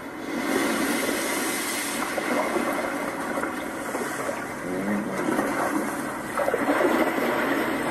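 Steady churning, bubbling water in a swimming pool, heard muffled as if from under the surface.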